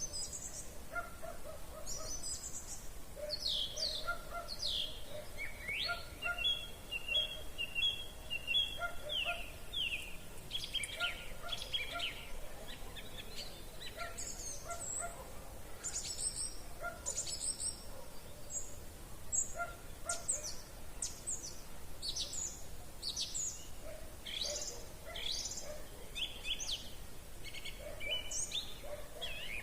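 Several songbirds singing in an evening chorus: short, quick whistled and trilled phrases overlapping throughout, with a lower call repeating steadily underneath.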